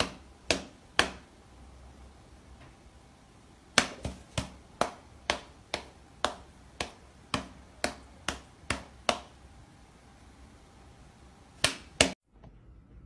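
A series of sharp taps: two close together near the start, then about a dozen at an even pace of roughly two a second, and two more near the end.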